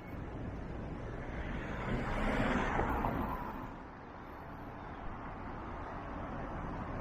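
A car driving past, its noise swelling to a peak about two and a half seconds in and then fading, over a steady low rumble.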